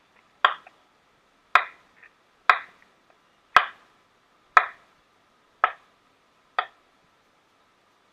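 Kitchen knife chopping through zucchini onto a cutting board: seven even strikes, about one a second, stopping well before the end.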